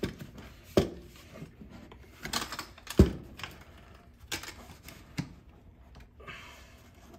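A plastic ski boot shell knocking and clicking while its foam inner liner is worked out of it by hand, with scattered rustles in between; the loudest knock comes about three seconds in.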